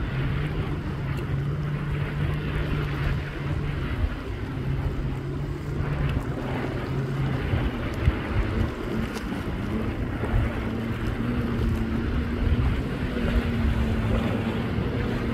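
Watercraft engines running on the open water: a steady low engine drone, joined about ten seconds in by a higher, wavering engine tone as a jet ski speeds closer. Wind buffets the microphone throughout.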